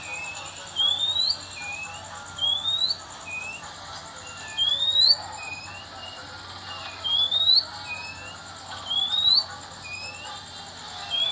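Oriental magpie-robin (kacer) singing: loud, short, rising whistled notes repeated about every two seconds, with softer, lower rising notes between them.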